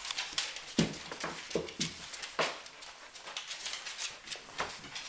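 An Australian labradoodle puppy and a cat play-fighting at close range: a busy run of irregular taps, scratches and scuffles, with a few heavier thumps in the first half.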